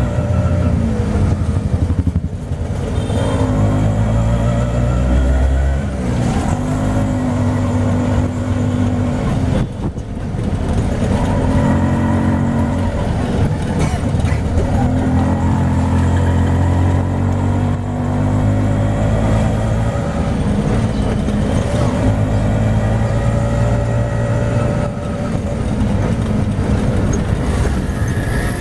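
Auto rickshaw engine running as the rickshaw drives through traffic, heard from inside the open passenger cabin, its pitch rising and falling with the throttle and dipping briefly twice.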